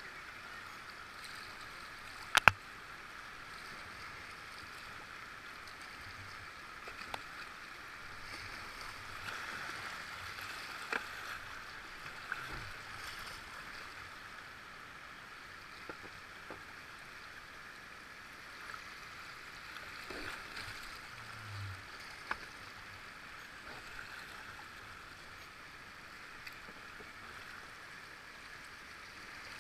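Steady rush of river water around a kayak, with a few sharp knocks, the loudest about two seconds in.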